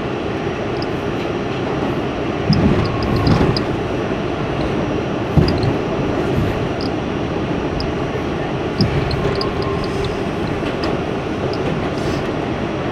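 R68 subway car running through the tunnel, heard from inside the car: a steady rumble of wheels on rail with a few louder knocks and jolts.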